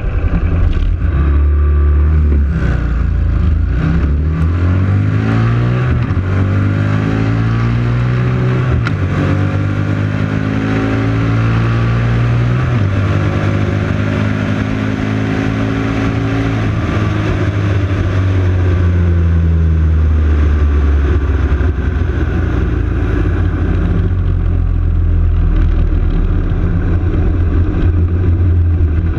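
Motorcycle engine on a drag run, heard from a camera mounted on the bike: it accelerates hard through several gears, the pitch climbing and dropping back at each shift. After about 13 seconds the throttle closes and the engine slows to a low steady run, with wind noise over the microphone.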